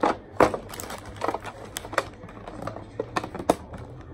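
Snow crab legs being cracked open and eaten: a string of sharp, irregular cracks and clicks of shell, about seven in four seconds.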